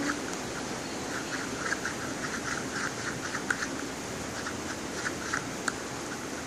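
Steady hiss of light rain, with many small, irregular clicks scattered through it.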